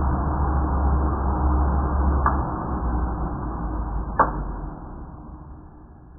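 Hair dryer blowing as a steady rushing noise with a low hum, sounding slowed down and dull. There are two sharp clicks, about two and four seconds in, and then the noise fades away.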